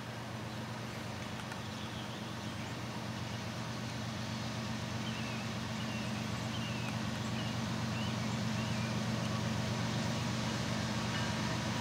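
Diesel locomotive engine running with a steady low hum, growing gradually louder as the train approaches.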